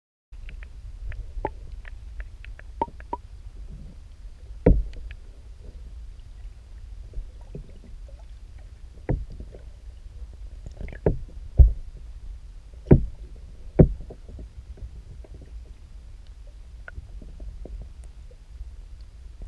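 Paddling an Old Town Next canoe: a steady low rumble with light clicks and an uneven handful of sharp knocks, as the paddle and gear bump the hull, the loudest clustered in the middle of the stretch.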